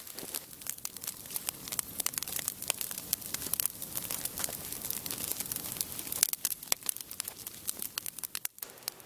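Wood fire of stacked branches and sticks crackling, with many sharp snaps and pops over a soft hiss; a louder pop comes a little after the middle.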